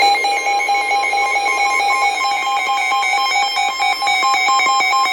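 Emergency alert tone on NOAA Weather Radio: a steady electronic tone at two pitches sounding together, the attention signal that heralds a severe thunderstorm warning.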